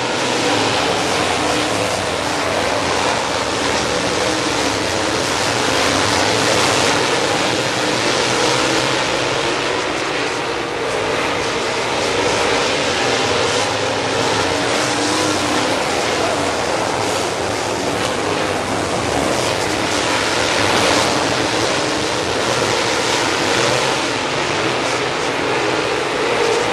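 A pack of dirt late model race cars running at full race speed, their V8 engines merging into a steady, loud engine noise that swells each time cars pass close by.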